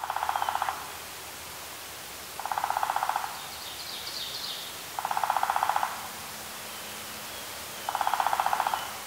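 Outdoor nature ambience: an animal's short, rapidly pulsed trilling call, repeated four times about every two and a half seconds over a steady hiss, with a fainter, higher chirping call near the middle.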